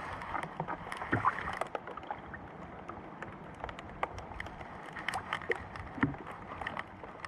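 Rain pattering on a small boat and the water around it: many scattered light taps at irregular times over a steady hiss.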